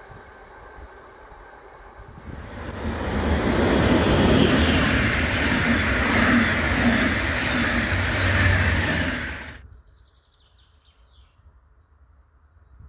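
Train passing at speed close by: the rush of wheels on rails swells in about two seconds in and holds loud for some seven seconds. It cuts off suddenly near the ten-second mark, leaving faint birdsong.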